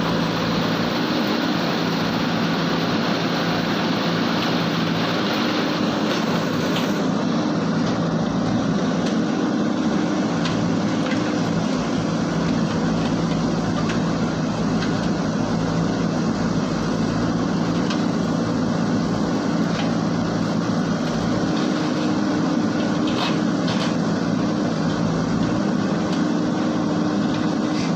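Diesel engine of a JCB backhoe loader running steadily as it works, its pitch shifting slightly now and then under load.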